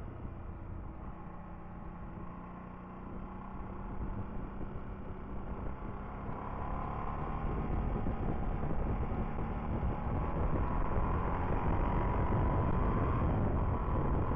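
Motorcycle engine running hard up a winding road, heard with wind and road rush from a camera mounted by the front fork. The engine note grows louder and a little higher from about halfway in as the bike accelerates.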